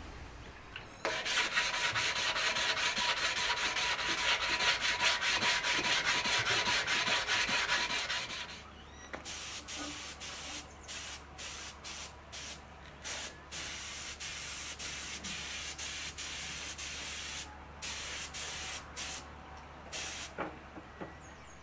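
Power sander working a surface: a steady run for about seven seconds, then a string of short bursts that start and stop.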